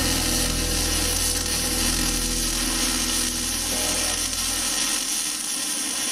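Wire-feed (MIG) welder arc burning on a steel bracket, a steady hiss running throughout. A low hum underneath fades out a little past halfway.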